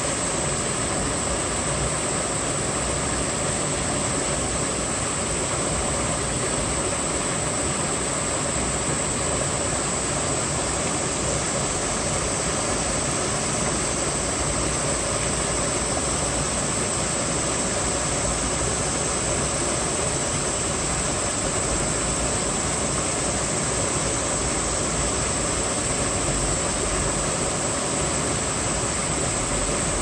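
Mountain stream rushing, a steady, unbroken sound of running water.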